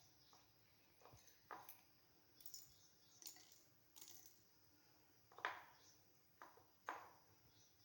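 Faint, irregular light knocks and clicks of objects being handled, about nine of them, the loudest about five and a half seconds in.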